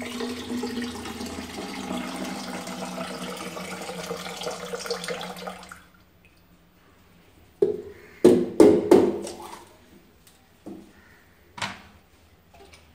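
Coconut water pouring in a steady splashing stream from a cracked coconut into a plastic container, stopping about six seconds in. Then a quick run of about five sharp knocks as a machete strikes the coconut shell, followed by two lighter knocks.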